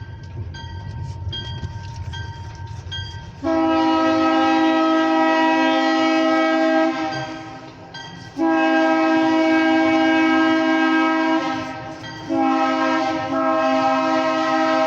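Approaching diesel locomotive's multi-chime air horn sounding three long blasts, a chord of several notes each, the last running on past the end. A low rumble of the oncoming train comes before the horn.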